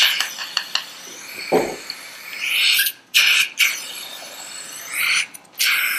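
Surgical suction hissing in irregular surges in the open mouth during oral surgery, with a single dull thump about a second and a half in.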